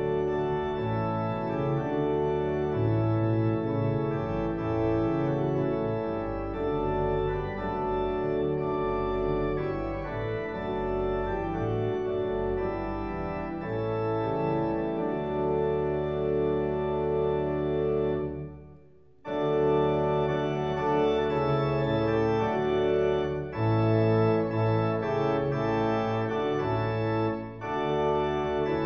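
Church organ playing a postlude after the dismissal: sustained full chords over a moving bass line. The playing breaks off briefly about two-thirds of the way through, then carries on.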